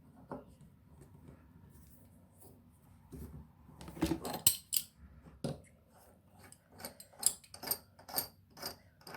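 Small metal faucet parts clicking and clinking as a faucet handle assembly is worked loose and unscrewed by hand: a few sharp clinks about four seconds in, then a quicker run of clicks near the end.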